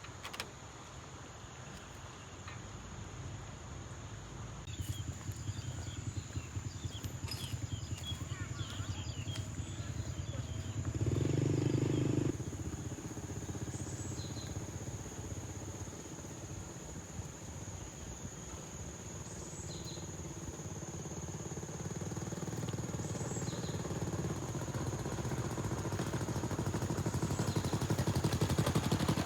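Motorbikes passing on a road, their engine noise swelling and fading, loudest about eleven seconds in and again near the end. A steady high-pitched insect drone runs underneath.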